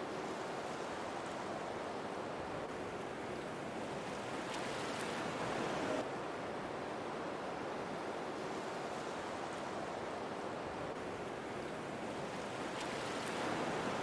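Waterfall: a steady rush of falling water that swells a little and drops back twice.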